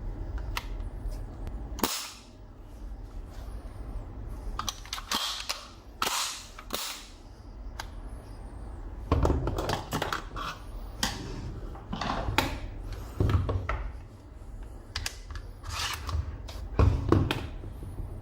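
About a dozen sharp cracks from a 9 mm submachine gun at irregular intervals, some with a short echo trailing after them.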